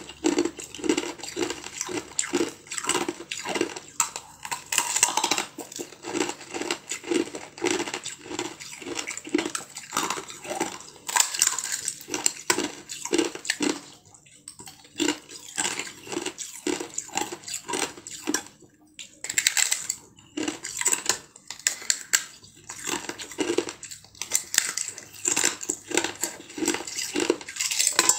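Ice being bitten and chewed: sharp cracks and crackles as the pieces break between the teeth, over a chewing rhythm of about two crunches a second, with a few short pauses.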